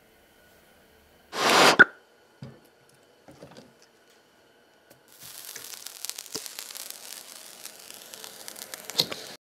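A red-hot nickel ball set down into a steel bowl of glitter, crackling and sizzling steadily with many small pops from about five seconds in, with one sharper crack near the end before it cuts off. Earlier there is a loud half-second rush of noise and a few faint knocks.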